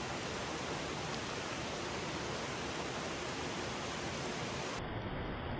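Steady rushing of a rocky mountain stream flowing over stones. Near the end the sound turns duller and deeper.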